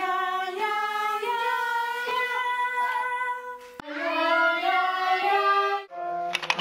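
A child and a woman singing long held notes that step from pitch to pitch, like a singing warm-up. The singing breaks off briefly twice, about three and a half seconds in and again near the end.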